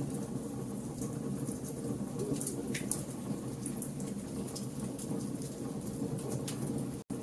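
Campfire of burning logs crackling: irregular sharp pops and snaps over a steady low rush of flame. The sound drops out for an instant near the end.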